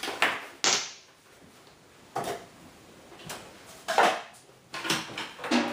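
Kitchen handling sounds: a series of separate knocks and short scrapes as bowls and utensils are set down and moved on a counter.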